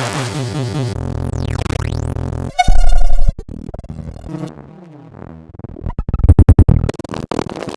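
A string of synthesized electronic sound effects: a fast stepping, arpeggio-like pattern, then a pitch swoop that falls and rises again, then a loud low buzzy burst about three seconds in. Quieter tones follow, and near the end come loud, rapidly stuttering glitch pulses.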